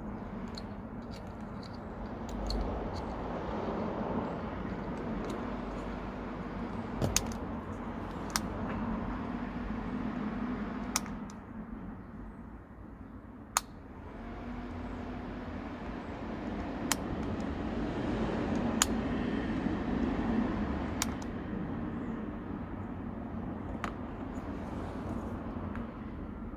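Hyundai Galloper's engine running steadily, a low hum that grows louder twice, with a few sharp clicks.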